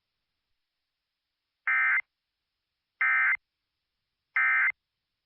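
Emergency Alert System end-of-message signal on NOAA Weather Radio: three short bursts of digital SAME data tones, about a second apart, marking the end of the alert broadcast.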